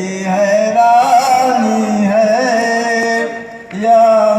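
A man singing a naat, holding long wavering notes without clear words over a steady low drone. He pauses briefly, then comes back in loudly near the end.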